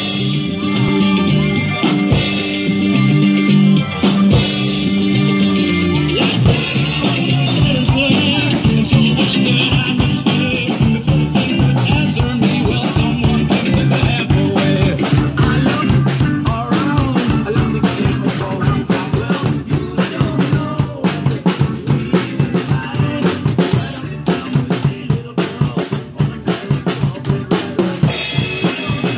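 A drum kit played live, with kick drum, snare, toms and Paiste PST cymbals, over recorded backing music that is clearest during the first six seconds. After that the drumming takes over as a steady, busy beat, and near the end it breaks into more separate, sharp hits.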